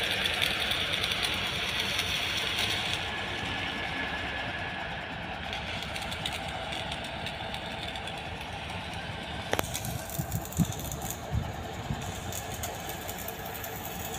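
Heavy construction machinery engine running steadily, with a sharp click about two-thirds through and a few low thumps just after it.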